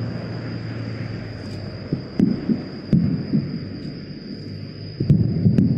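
Aerial firework shells bursting: a series of booms with rumbling echoes, a few together about two to three seconds in and two more near the end.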